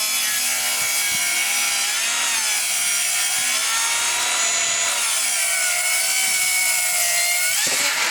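Bosch GKS 18V-68 GC brushless cordless circular saw cutting through wood. The blade and motor whine holds steady, with the pitch sagging slightly a few times as the cut loads it, and cuts off near the end.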